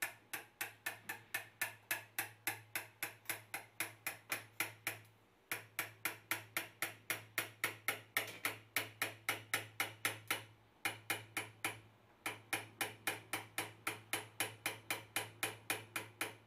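Light hammer taps on the metal handle of an osteotomy chisel, driving it into the cut of a plastic model tibia: a quick, even tapping of about four blows a second, pausing briefly about five and eleven seconds in.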